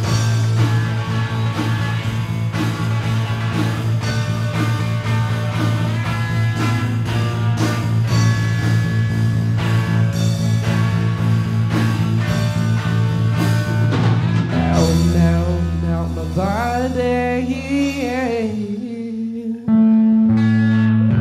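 A rock band playing live through an instrumental stretch of a song: steady guitar chords over a strong bass note, with drums. About fifteen seconds in the bass drops to a lower held note under a wavering, bending lead line, and the full band comes back in near the end.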